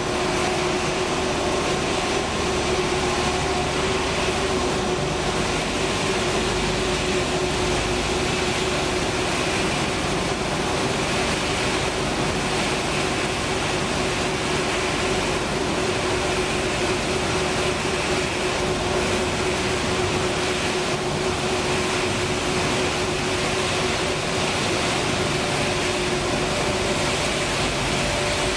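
Dog food production line machinery running: a steady, unbroken mechanical noise with a constant hum.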